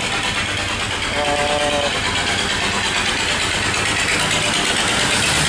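Vỏ lãi longtail boat engines running at speed, a steady loud engine drone with no breaks.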